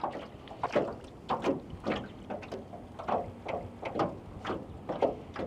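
Creek water lapping and slapping against the side of a small jon boat: a string of short, irregular splashes and knocks, several a second.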